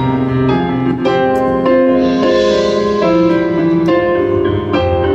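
High school marching band playing its field show music: held chords that change every second or so, with keyboard tones from the front ensemble.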